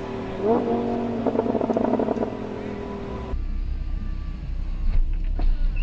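A car engine revving up about half a second in and holding high revs for nearly two seconds on the drag strip. Then, after an abrupt change, the Lamborghini Huracán LP610-4's V10 idles as a low rumble heard inside the cabin, with a few short clicks as the centre-console switches are worked.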